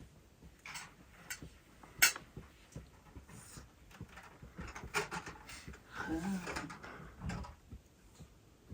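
Scattered clicks and knocks of objects being handled, with one sharp click about two seconds in and a short pitched sound around six seconds.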